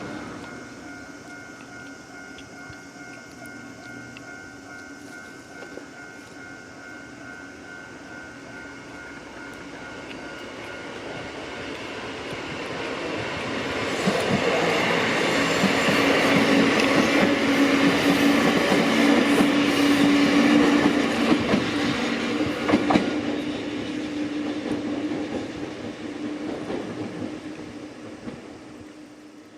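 Level-crossing warning bell ringing while a train approaches, then the train passes over the crossing with a clatter of wheels over the rail joints and a steady hum, loudest about halfway through, then fading away.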